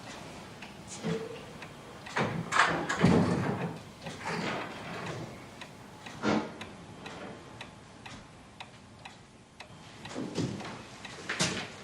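Clock ticking in a quiet room, with a few louder knocks and rustles of movement about two to three seconds in, about six seconds in, and near the end.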